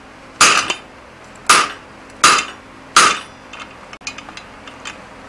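Hand hammer striking the top die of a guillotine fullering tool four times, a blow about every second, each a sharp metallic clang with a brief ring, as the dies are driven into a bar of hot 4140 steel. Some lighter metallic clinks follow near the end.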